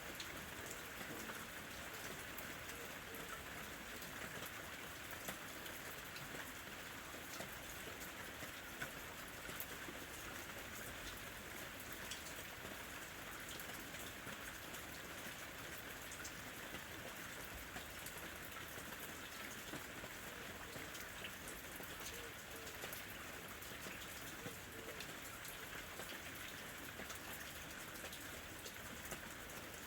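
Steady rain falling: an even hiss with many small, scattered drop ticks, at an unchanging intensity.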